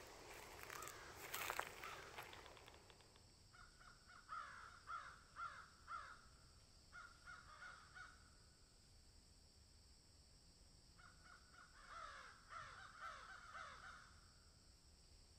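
Crows cawing faintly in two runs of repeated caws, about two a second. Near the start there are a couple of sharp clicks with some rustling.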